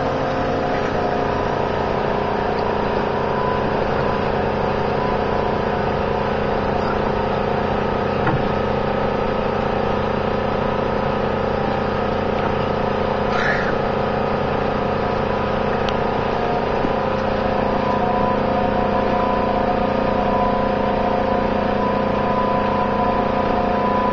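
Engine running steadily at constant speed, a continuous even hum. A brief high squeak about halfway through.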